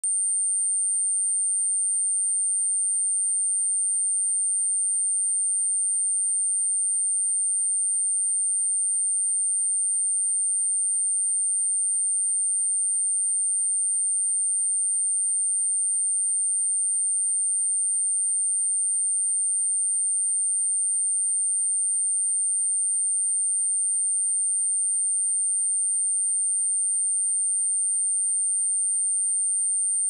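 A single steady 8903 Hz sine-wave test tone, a continuous high-pitched whistle held at one pitch and level, of the kind played to test speakers or to shake water and dust out of a phone speaker.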